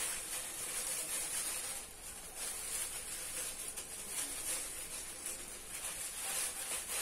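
Plastic cooking bag crinkling and rustling as hands twist its open end shut around a whole chicken to tie it.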